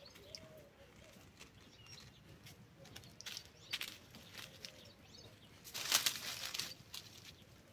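Quiet outdoor background broken by two short rustling bursts, one about three and a half seconds in and a louder one about six seconds in.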